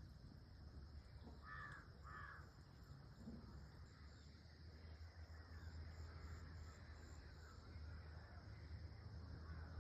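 Two short bird calls in quick succession about a second and a half in, over a faint steady low hum.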